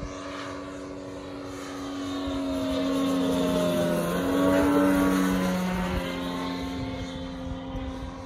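Large-scale RC aerobatic plane's DA-200 four-cylinder boxer two-stroke gas engine and propeller running steadily in flight as it passes overhead, growing louder to a peak around the middle and then fading.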